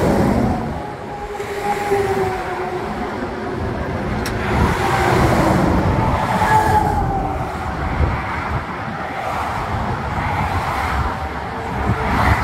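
Highway traffic passing, cars and heavy trucks going by in swells of tyre and engine noise.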